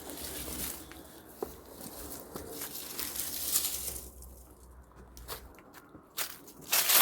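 Irregular rustling and crunching of footsteps over rough ground and brush, with scattered sharp clicks and a louder crunch near the end.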